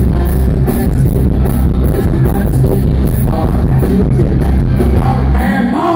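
Live country band playing loud: drums with a steady cymbal beat, bass and guitars.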